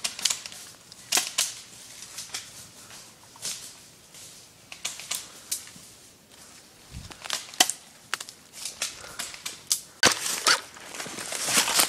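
Airsoft guns firing, sharp pops at irregular intervals. From about ten seconds in, a denser rustle and crunch of dry leaf litter joins them.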